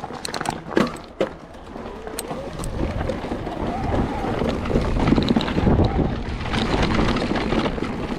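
Mountain bike riding down a dirt trail: tyres rumbling and rattling over the ground with wind on the microphone, swelling as the bike picks up speed. A few sharp clicks and knocks in the first second.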